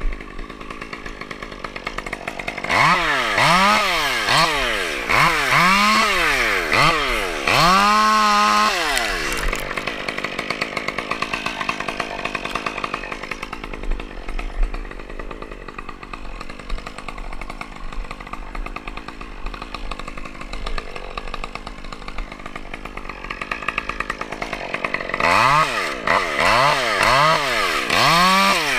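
Chainsaw engine idling, then revved in repeated bursts about a second apart, its pitch rising and falling with each burst, twice: a few seconds in and again near the end.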